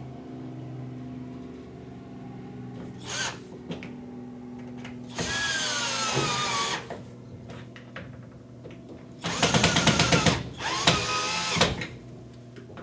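Battery drill driving screws through U-brackets into wall anchors, in several short runs. In the longest run the pitch drops as the drill slows. The last two runs are the loudest and pulse rapidly.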